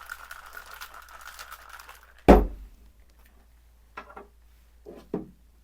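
Ice rattling in a cocktail shaker being shaken, stopping about two seconds in, followed by one loud thump and then a few softer knocks.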